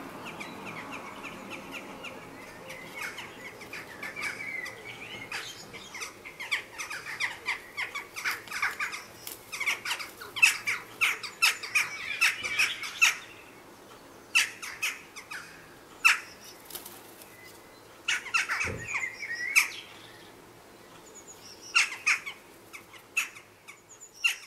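Jackdaws calling in a squabble at a chimney nest: runs of short, sharp 'chak' calls, densest in the first half, then in shorter clusters, with wing flaps as birds fly in. A single dull thump about three-quarters of the way in.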